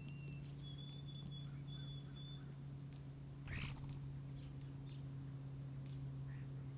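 Faint bird sounds over a constant low hum: a few thin, steady whistled notes in the first couple of seconds, then one short, harsh burst about three and a half seconds in.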